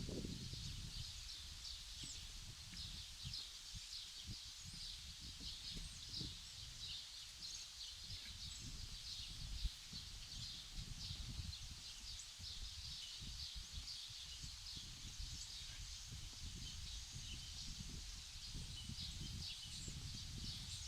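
Outdoor nature ambience: a steady chorus of many short, high chirps, faint, over an uneven low rumble.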